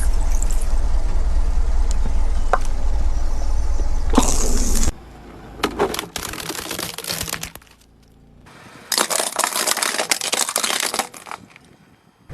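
A car tyre rolls over a toy car, crushing it: plastic cracks and crunches in three bursts, about four seconds in, around six to seven seconds, and nine to eleven seconds. A car engine runs low under the first five seconds.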